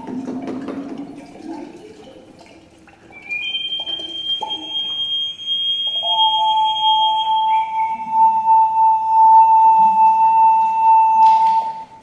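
A water instrument sounding long, steady, pure tones: a high tone held for about four seconds from about three seconds in, then a lower, louder tone held from about six seconds in until it cuts off near the end. A lower ringing fades away at the start.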